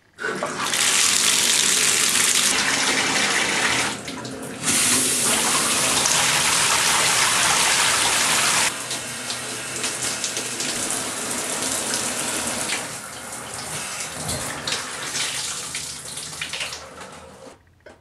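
Water running hard, like a tap or bath filling. It starts abruptly, dips briefly about four seconds in, runs weaker after about nine seconds and stops near the end.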